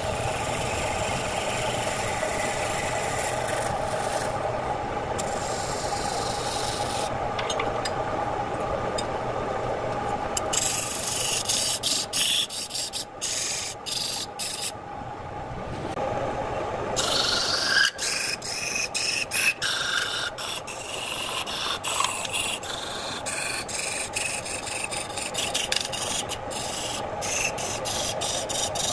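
Electric wood lathe running with a steady hum while a turning tool cuts a spinning redwood vase blank: a rough scraping hiss that comes and goes as the tool bites, with many sharp clicks through the second half.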